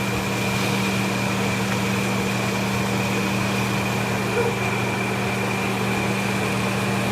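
Steady electric motor hum with a faint high-pitched whine, unchanging throughout, like a running kitchen fan or appliance.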